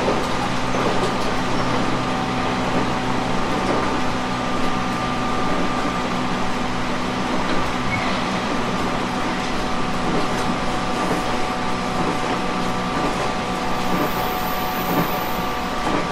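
JR East 719 series electric train running at a steady speed, heard from inside: a constant rumble of wheels on rail with several steady whining tones, the 719 series' so-called 'jet sound' while it runs.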